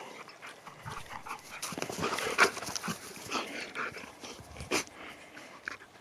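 Husky making short, irregular whiny sounds and panting, with a few louder calls around the middle.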